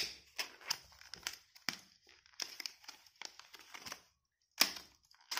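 Plastic packaging of a Tombow Mono Zero eraser crinkling and crackling as it is prised open by hand, in irregular sharp clicks, with a loud snap at the start and another near the end.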